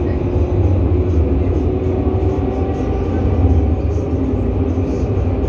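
Tram running along its line, heard from inside the car: a steady low rumble of wheels on rails with a faint hum from the traction motors.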